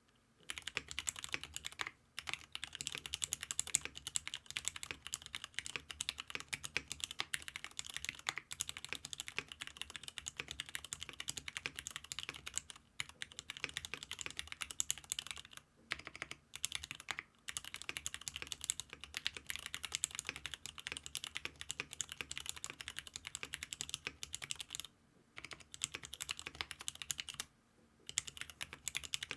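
Mechanical keyboard with Cherry Nixie switches in a GEON F1-8X case on an aluminium plate, typed on in a fast, steady stream of key clacks, with a few brief pauses.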